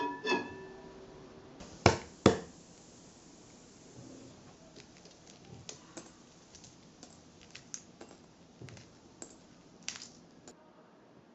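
Soft-boiled eggs knocked twice against a ceramic plate, then faint, scattered crackles and clicks of the shells being cracked and peeled off.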